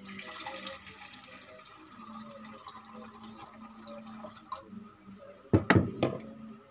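Water pouring from a plastic bottle into a small saucepan, strongest in the first second and trickling on for about four seconds. Near the end come a few loud, sharp knocks.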